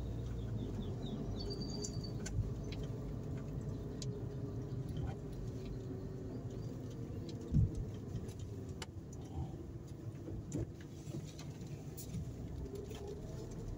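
Car driving through town streets, a steady low rumble of engine and road noise heard from the car, with scattered light clicks and rattles. A single low thump stands out about halfway through, and a bird chirps briefly about two seconds in.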